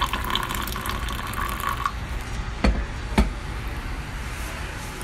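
Tea poured from a silver Moroccan teapot into a glass: a steady splashing stream that stops about two seconds in. Then two sharp knocks about half a second apart.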